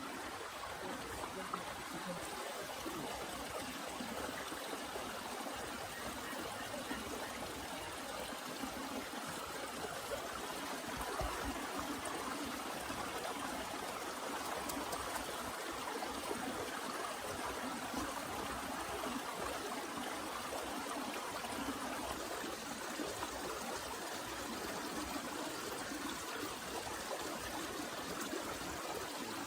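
Heavy rain falling steadily, an even rushing hiss of water.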